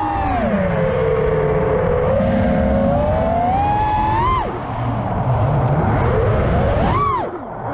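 FPV quadcopter's Xnova 2207 1950kv brushless motors spinning HQ J37 propellers, a whine whose pitch follows the throttle. It holds fairly steady, climbs to a peak about four seconds in and falls away, then rises and drops sharply again near the end, with a rushing air noise underneath.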